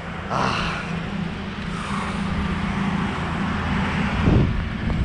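Road traffic on a highway heard from a moving bicycle: a steady low hum of vehicles, swelling louder about four seconds in.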